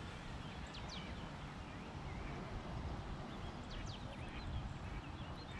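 Birds calling outdoors: a few short, high, falling chirps over a steady low background rumble.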